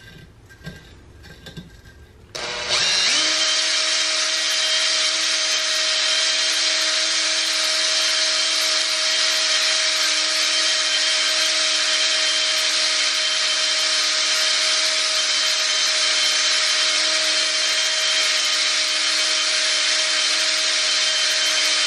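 Electric drill starting about two seconds in and then running steadily, spinning a brass screw loaded with grinding compound against the muzzle of a hard steel 9mm barrel, with a gritty grinding sound as the compound cuts a new crown.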